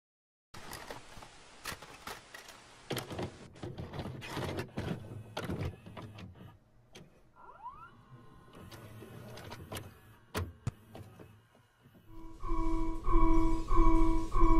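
Videotape playback noise: irregular clicks, thunks and crackling static. About twelve seconds in a louder low pulsing tone with overtones starts, repeating about one and a half times a second over a low rumble.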